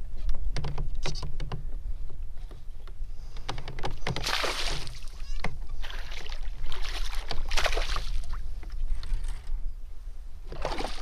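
Water splashing and sloshing at a plastic kayak's side while a hooked largemouth bass is played and reeled in. It comes in several rushing bursts of about a second, with scattered sharp clicks early on, over a steady low rumble.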